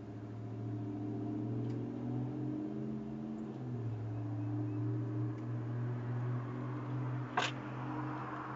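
Steady low mechanical hum, wavering slightly in pitch, with one sharp click near the end.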